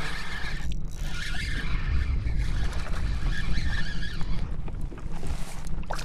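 Wind buffeting the microphone: a steady low rumble under an even hiss.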